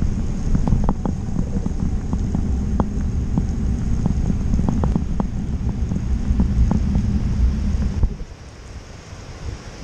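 Wind buffeting the camera microphone on a fast bicycle descent down a wet road, a loud, uneven low rumble with scattered sharp ticks over it. The rumble drops off abruptly about eight seconds in, leaving a fainter hiss.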